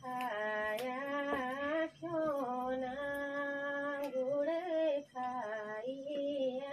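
A woman singing a song unaccompanied, in long held notes, with short pauses for breath about two and five seconds in.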